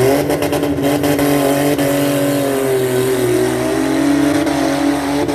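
Demolition derby car engine revving hard and held at high revs, its pitch drifting slightly. A few sharp knocks come in the first second.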